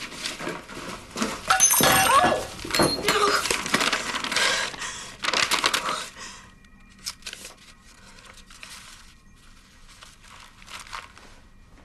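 Paper packing crumpling and tearing as a cardboard box is unpacked by hand, loud and dense for the first half, then dying down to a few scattered small rustles and clicks.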